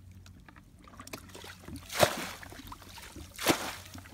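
Muddy water being bailed out with buckets: two loud splashes about a second and a half apart as buckets are dumped, with trickling and sloshing between.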